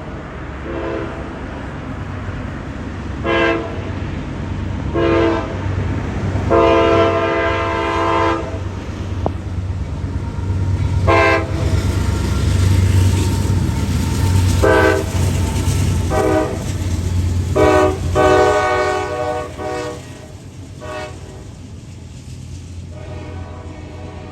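CSX freight train's locomotive horn sounding a series of blasts, mostly short with two long ones, over the steady low rumble of the diesel locomotives passing. The blasts stop about four seconds before the end, leaving the quieter rumble of the train.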